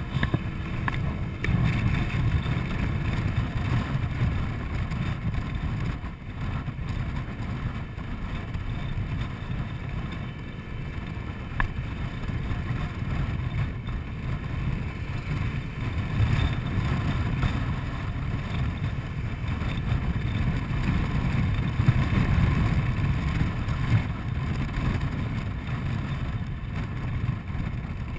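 Riding noise from a Honda Forza 125 scooter on the move: wind buffeting the camera's microphone in a rough, rising-and-falling low rumble over the engine and road. A few brief knocks come through along the way.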